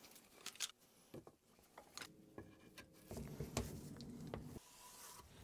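Faint scattered clicks and knocks of steel bar clamps being handled and a clamp screw being tightened down onto a glued-up wooden strip, with a faint low hum for about a second and a half past the middle.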